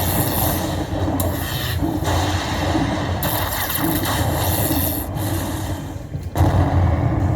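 Steady din of a casino floor, a noisy rubbing, scraping haze with no clear tune, which drops out in its high part briefly several times.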